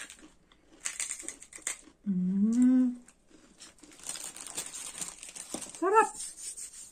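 Plastic snack packet crinkling in bursts. About two seconds in comes a drawn-out vocal sound lasting about a second, and near the end a short spoken 'sarap'.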